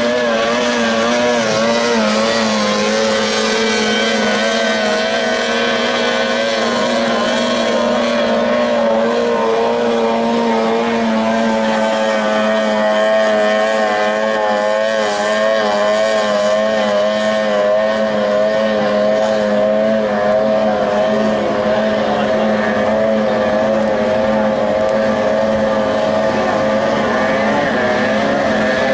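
Outboard engines of 30 hp tunnel-hull racing boats running flat out: a loud, steady engine whine whose pitch wavers rapidly up and down.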